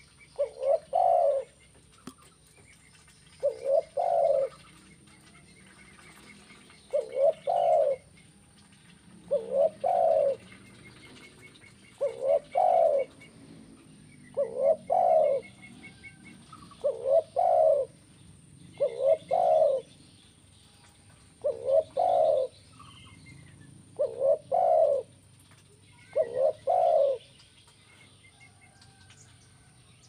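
Spotted dove cooing: a short two- or three-note coo repeated about every two and a half seconds, eleven times in a row, with faint chirping of small birds behind it.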